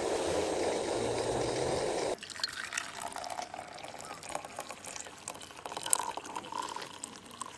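Water poured from a small pan into a stainless insulated mug, trickling and splashing as the mug fills. It follows about two seconds of steady rushing noise that stops suddenly.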